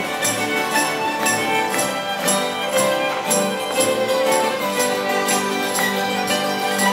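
Live old-time string band playing a tune on fiddle, acoustic guitar and hammered dulcimer, with a steady beat about twice a second.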